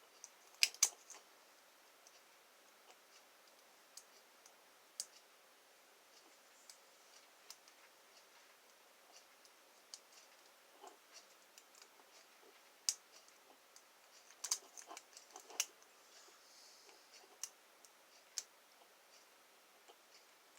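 Lock picks working inside an American Lock 1305 series padlock: sparse, irregular small metallic clicks and ticks as pins are raked and set, with a quick run of clicks about three-quarters of the way through.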